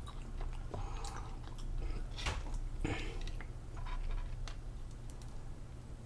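A person chewing food, with scattered short clicks and wet mouth noises.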